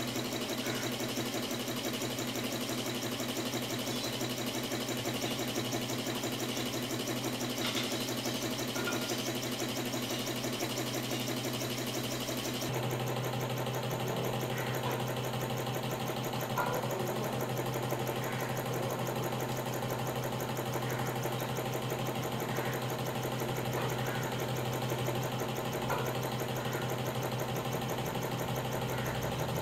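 Old Singer sewing machine driven by belt from a 775 12 V DC motor, running steadily: the motor's steady hum with the machine's fast, even mechanical clatter. The sound shifts slightly about 13 seconds in.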